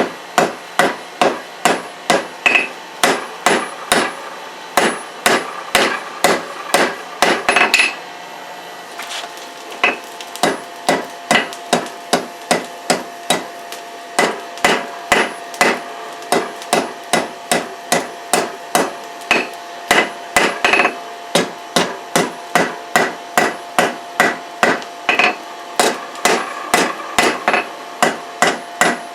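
Hand hammer striking hot leaf-spring steel on an anvil, drawing out a knife blade: steady rhythmic blows about two and a half a second, with the anvil ringing. The hammering stops for about two seconds some eight seconds in, then resumes.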